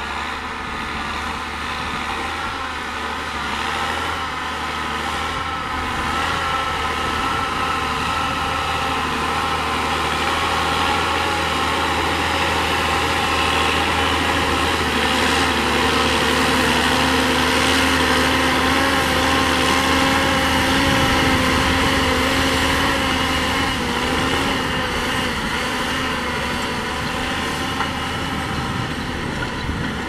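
John Deere tractor's diesel engine running steadily under load while pulling a disc harrow through soil. The sound grows louder over the first half, then eases off slightly.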